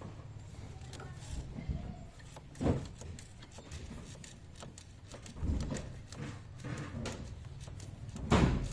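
Scattered knocks and clanks of tools on metal during engine repair work, with two louder knocks about three seconds in and near the end, over a steady low hum.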